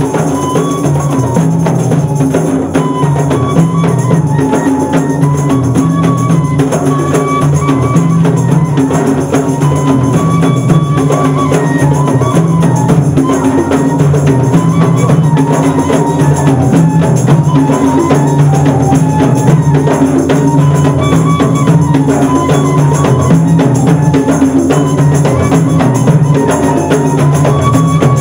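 A flute playing a stepping melody over steady rhythmic beating of hand-held frame drums, in Comorian devotional music.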